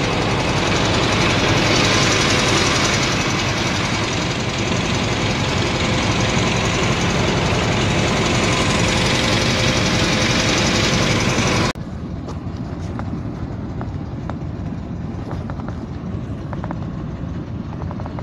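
Small wooden fishing boat's engine running steadily under way. About twelve seconds in, the sound drops suddenly to a quieter, duller run of the same engine.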